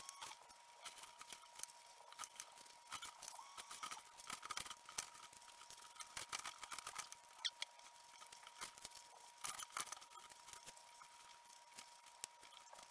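Faint, irregular wet crackling and clicking of a metal spoon scooping and scraping watermelon flesh from the rind, mixed with chewing. A thin steady high tone runs underneath.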